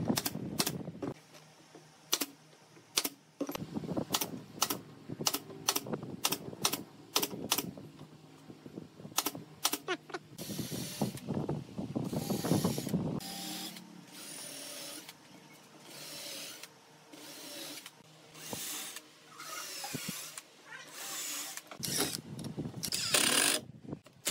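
A series of sharp, separate clicks or knocks, then a cordless drill driving screws into pine chair slats in short bursts, several times over.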